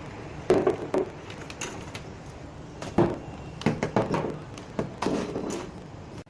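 A series of irregular knocks and taps: two sharp ones early, the loudest about halfway, then a quick cluster and a few more toward the end.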